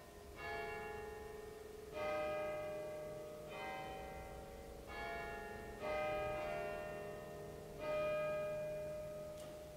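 Bells struck one at a time, six strikes a second or two apart, each ringing out and slowly dying away.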